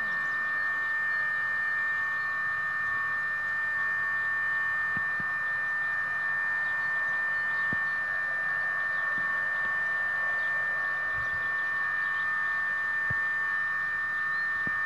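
A steady high-pitched hum held at one pitch throughout, with a few faint clicks.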